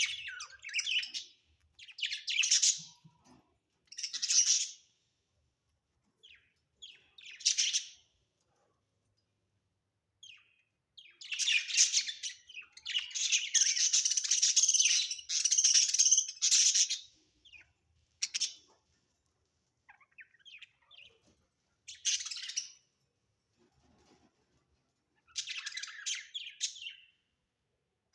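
Budgerigars chirping in short bursts with silent gaps between them, running on almost without a break for several seconds near the middle.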